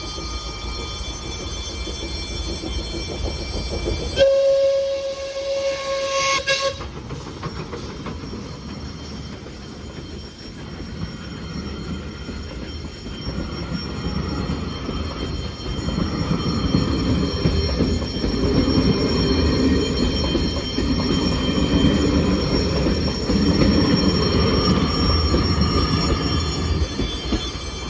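A diesel train's horn sounds once, a steady note lasting about two and a half seconds, about four seconds in. A train's rumble then builds and stays loud through the second half.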